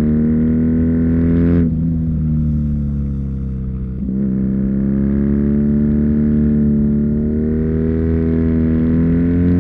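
2019 BMW R nineT's boxer twin engine, fitted with an Akrapovic slip-on exhaust, pulling under way. The revs drop sharply about a second and a half in, dip briefly near four seconds, then climb slowly and steadily.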